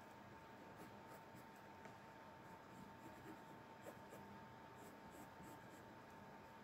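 Faint scratching of a pencil tracing lines on fabric, short strokes at an irregular pace, over a steady faint hum.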